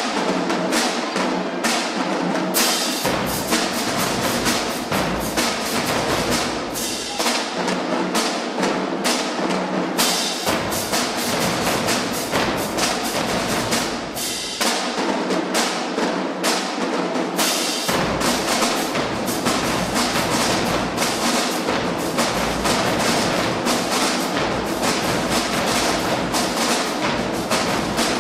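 Marching drum line playing a fast cadence: snare drums and tenor drums in dense rapid strokes, with bass drums and crash cymbals. The low bass drums come in and drop out by turns every three or four seconds.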